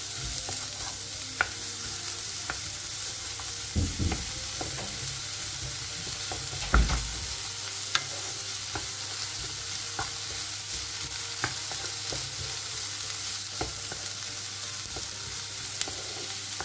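Sliced onions and green chillies sizzling in a little oil in a non-stick wok while being sautéed soft, stirred and tossed with a wooden spatula that clicks and scrapes against the pan. Two louder thumps come about four and seven seconds in.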